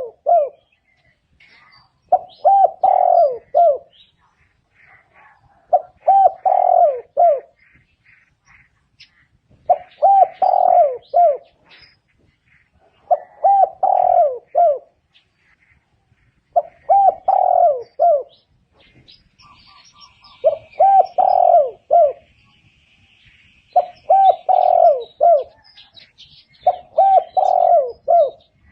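Spotted dove cooing: a phrase of several low coos repeated about every three and a half seconds, eight times. Faint chirps of smaller birds sound between the phrases.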